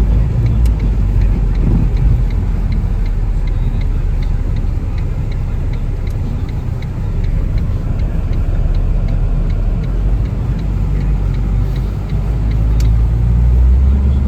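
Subaru BRZ's flat-four engine and tyres on a snowy road, heard from inside the cabin as a steady low rumble that grows louder near the end. A light ticking repeats about twice a second over it.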